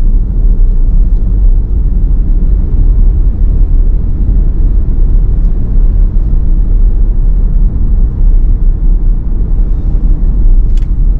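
Steady low rumble of a car in motion: road and wind noise while driving, with no distinct events.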